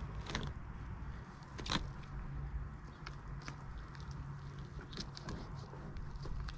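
Knife cutting and pulling raw meat from a skinned rooster carcass: faint, scattered wet clicks and tearing sounds, over a steady low hum.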